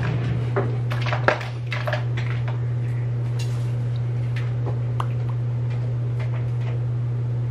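A steady low hum, with scattered small clicks and taps from handling a lip gloss tube and its applicator wand, the sharpest about a second and a half in.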